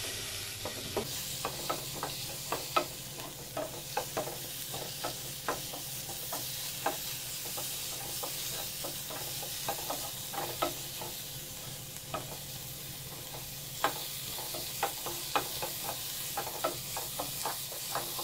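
Chopped onion, capsicum and tomato sizzling as they sauté in butter in a nonstick frying pan. A wooden spatula stirs through them, tapping and scraping on the pan a few times a second at an irregular pace over the steady sizzle.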